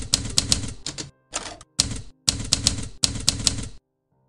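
Typewriter key-strike sound effect keeping time with text typed out letter by letter: runs of rapid clacks broken by short pauses, stopping near the end.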